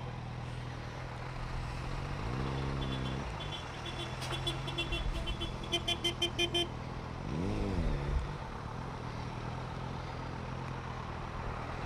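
Motorcycle engine running at low speed, rising and falling in pitch with two brief throttle blips. Midway there is a quick run of short, evenly spaced electronic beeps, about three a second.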